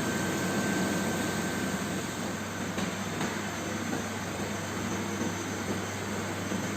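Steady background hum with an even hiss, the continuous room noise of a machine such as a fan or air conditioner, with no distinct events.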